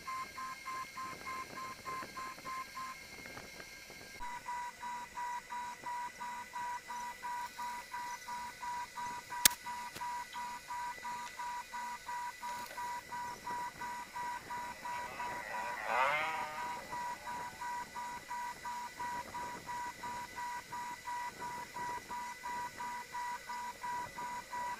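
A steady pattern of high electronic beeping tones pulsing about three times a second. A single sharp click comes a little over a third of the way in, and a newborn kitten gives one brief mew about two thirds of the way through.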